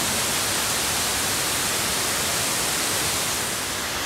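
Creek water rushing steadily over rocks, a constant even hiss that eases slightly near the end.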